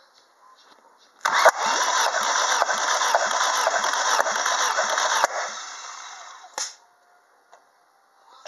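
Opel X16XEL 1.6-litre 16-valve four-cylinder engine cranked over by its starter for about four seconds during a cold compression test, then winding down, followed by a single click.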